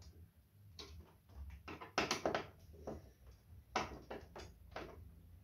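Irregular small clicks and taps of a screwdriver and metal fixings against the TV's plastic back and the metal wall-mount bracket, with a few louder knocks about two seconds in and near four seconds.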